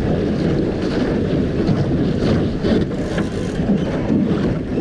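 Steady wind buffeting the microphone aboard a sailboat under sail, with water washing along the hull and short scattered splashes.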